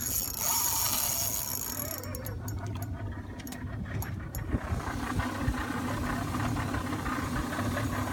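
Boat engine running steadily under a continuous wash of wind and water noise, with a louder rush of hiss in the first couple of seconds.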